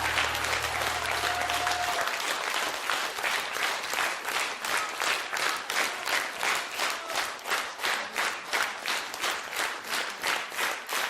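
Concert audience applauding after a song, with the last held chord of the band dying away about two seconds in. The clapping then settles into steady clapping in unison, about four claps a second.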